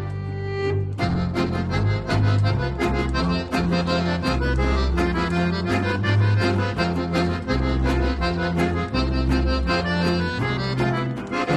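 Instrumental music with a steady beat over a moving bass line; the beat comes in about a second in.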